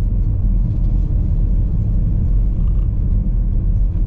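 Car engine and road noise inside the cabin: a steady low rumble as the car climbs a steep hill.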